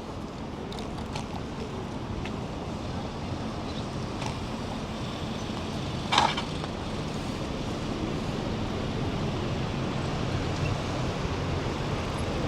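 Steady city street noise of passing traffic during an electric-scooter ride, with a short sharp clatter about six seconds in.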